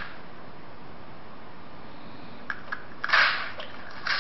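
Short scraping strokes of a knife blade cutting into the bark of an old olive trunk: a couple of light clicks, then a loud rasp about three seconds in and a shorter one near the end, over a steady hiss.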